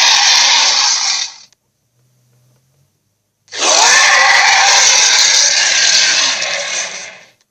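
Giant gorilla monster roar sound effect, harsh and raspy. One roar ends about a second in, and a second, nearly four-second roar starts about halfway through and fades out near the end.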